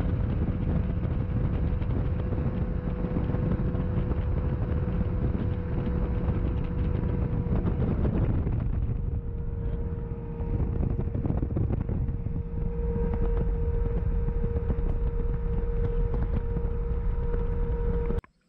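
Evinrude 250 two-stroke V6 outboard motor running at high speed as the boat planes across open water, with wind rushing over the microphone. The steady engine tone dips briefly about halfway, then holds again, and the sound cuts off abruptly just before the end.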